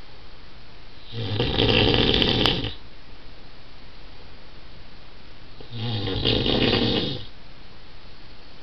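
A man snoring loudly in his sleep: two long snores, each about a second and a half, roughly four and a half seconds apart.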